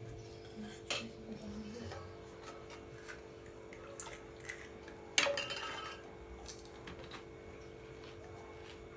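Steel ladle and spoons clinking against a steel pot and plates while puchka are filled. One louder clang about five seconds in rings briefly. A steady tone runs underneath.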